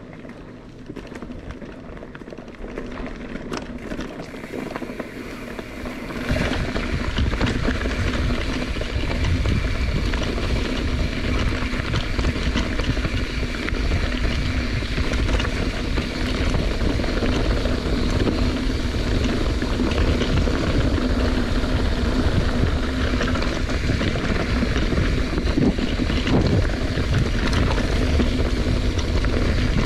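Wind rushing over the microphone while riding, jumping to a much louder level about six seconds in and staying heavy, with a steady low hum underneath.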